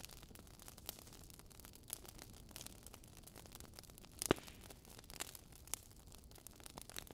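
Faint crackling: scattered clicks and pops over a low hiss, with one louder pop about four seconds in.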